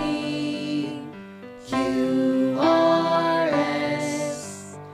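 Children's song music: a melody in held notes, played in phrases, dipping quieter about a second in before the next phrase.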